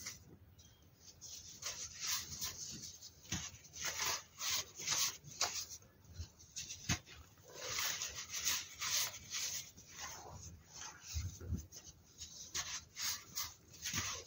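Hands crushing and rubbing handfuls of coloured baking soda powder, giving an uneven stream of short crunches and grainy rubbing.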